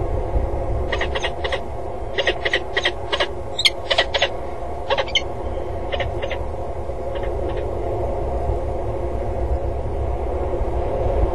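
Peregrine falcon calling: runs of short, sharp repeated calls for several seconds, thinning out about seven seconds in, over a steady low rumble.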